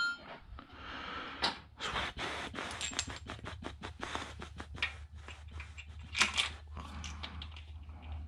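Clicks and knocks of metal parts and hand tools being handled, with a few sharper knocks, as the water pump and idler pulley are refitted to the engine. A steady low hum runs underneath.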